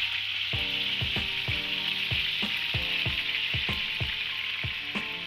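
Chicken sizzling steadily on a hot sizzler plate, over background music with pitched notes about twice a second.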